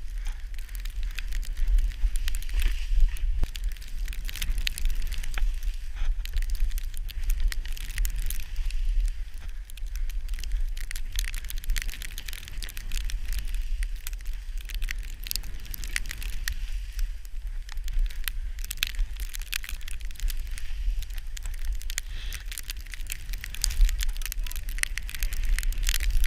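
Snowboard sliding through deep powder snow: a continuous crackling hiss of snow against the board, full of small sharp ticks, over a steady low rumble of wind on the microphone.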